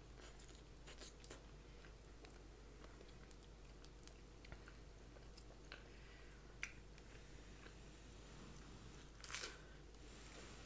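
Faint chewing and biting of food, with scattered small mouth clicks and one brief louder noise about nine seconds in.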